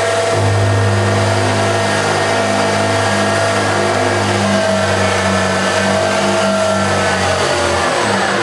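Milling machine spindle running at speed while a spinning high-speed-steel piece is pressed into a metal workpiece to friction-weld it. Near the end the pitch falls away as the spindle slows down.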